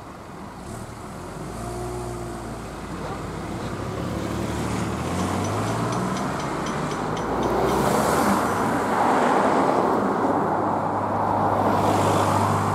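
Cars driving over the level crossing close by: engine and tyre noise building steadily, loudest in the second half as a car passes near.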